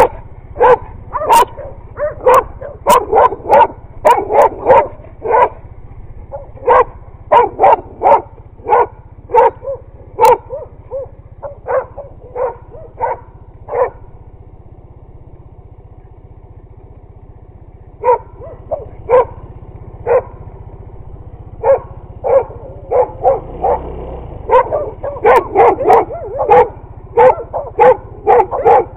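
Dogs barking at a motorcyclist in quick strings of two or three barks a second. The barking pauses for a few seconds in the middle, then starts again. A low steady hum runs underneath.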